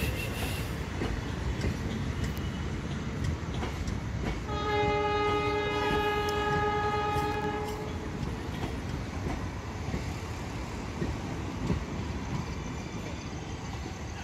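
Passenger coaches rolling past on the rails with a steady rumble as a train pulls out. About four and a half seconds in, a diesel locomotive's horn sounds once for about three seconds.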